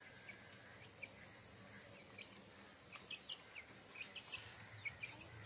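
Faint, scattered short bird chirps from about a second in, coming more often toward the end, over a steady high-pitched insect hum.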